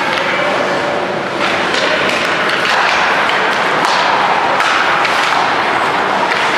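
Ice hockey play in a rink: skate blades scraping the ice and sharp clacks of sticks and puck, several knocks in all, over a steady noisy din that grows louder about a second and a half in.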